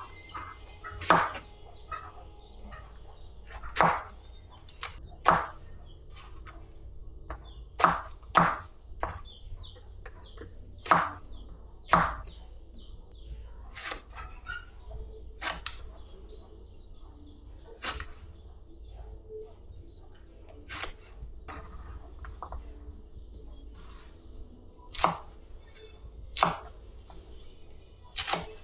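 Irregular sharp knocks and clacks of household objects being handled and set down, about fifteen over the stretch with uneven gaps, and faint bird chirps in the background.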